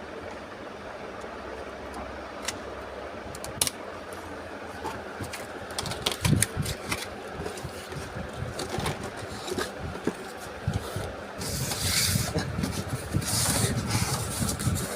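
Small clicks and taps of computer parts being handled and fitted, over a steady background hum, then a louder stretch of rustling and scraping near the end.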